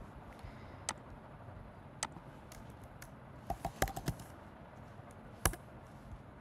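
Computer keyboard being typed on: a few separate keystrokes, a quick run of about five keystrokes about three and a half seconds in, and one louder keystroke near the end.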